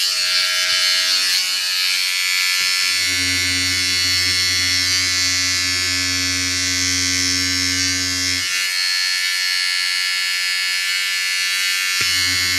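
Handheld electric trimmer running with a steady buzz, pressed against a motorcycle phone mount's SP Connect vibration dampener to test how much vibration passes through to the phone. A deeper hum joins about three seconds in, drops out after about five seconds, and comes back near the end.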